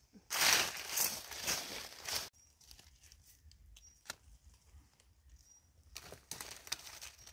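Dry leaf litter and undergrowth rustling and crunching as it is disturbed: a loud stretch of about two seconds near the start, and a shorter, quieter one near the end.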